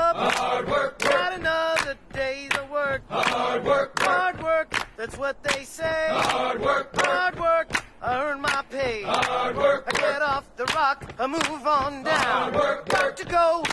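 Vocal music: voices singing in short, choppy phrases that break every fraction of a second.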